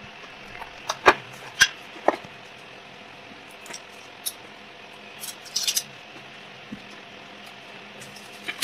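Sharp plastic clicks and light clatter of a Mastech M266 clamp meter being handled while a 9-volt battery is fitted into its battery compartment. There are a few loud clicks about a second in, a cluster around five and a half seconds, and more near the end.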